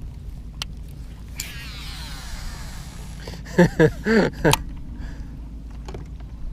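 A fishing reel's spool whirring as line pays out on a cast, starting with a click and falling in pitch as it slows, over a steady low rumble. A few short, loud vocal sounds from a person follow after the cast.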